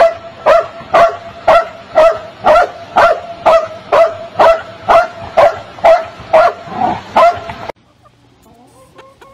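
A dog barking in a steady rhythm, about two barks a second, cut off abruptly near the end. Then a hen's faint, steady low clucking.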